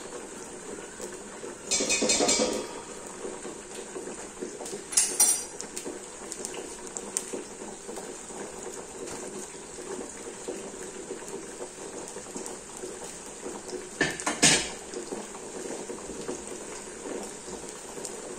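A slotted metal spoon clinks and scrapes against a pan of green beans being stirred on the stove, in three short clatters: about 2 seconds in, about 5 seconds in, and near the end. A steady hiss of the simmering pan runs underneath.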